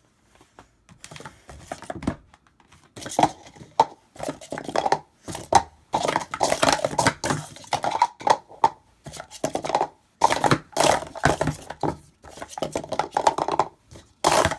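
Plastic sport-stacking cups clattering as they are rapidly stacked up and down on a stacking mat: a quick run of hollow plastic clacks, sparse for the first two seconds, then nearly continuous. These are red checkered-flag cups that the stacker judges fakes because they "don't sound right".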